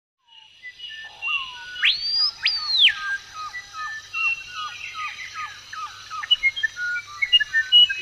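Birds chirping and whistling: two long high whistles that rise, hold and drop, about two seconds in, followed by a run of short repeated chirps, a few a second.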